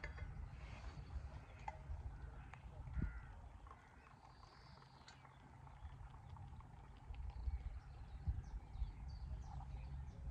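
Faint handling of a vacuum flask: light clicks and one clunk about three seconds in, over a low steady rumble, with birds calling faintly.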